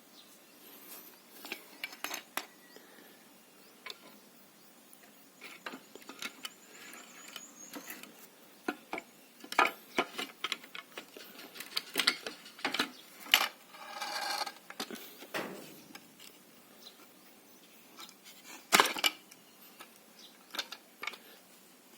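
Metal parts of a homemade air rifle being handled and fitted together: scattered clinks and knocks, with a short rattling scrape about fourteen seconds in.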